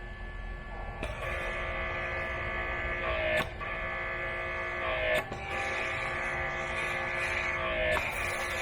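Electric pressure washer running with a steady whine while spraying soap foam. It cuts off briefly four times, dropping in pitch each time before starting again with a click, as the spray trigger is let go and squeezed again.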